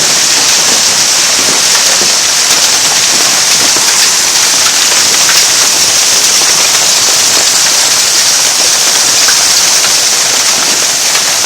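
Hail storm pelting down steadily: a loud, dense hiss of countless small impacts that keeps up without a break.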